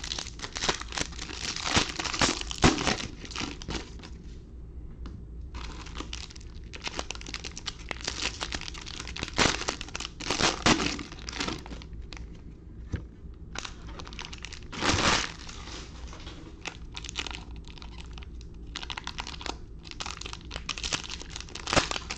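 Plastic wrapping crinkling and rustling as it is handled, in irregular bursts with a couple of short pauses.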